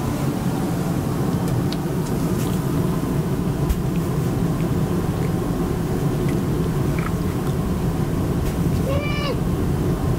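A domestic cat gives one short meow near the end, over a steady low rumbling background noise.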